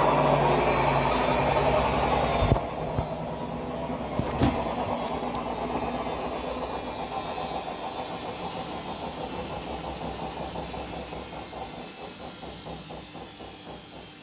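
Haier HW60-10636A washing machine spinning at 800 rpm in its rinse cycle. About two and a half seconds in, the sound drops suddenly with a click, and a second click follows a couple of seconds later. The drum then coasts down, its rhythmic pulsing slowing and fading.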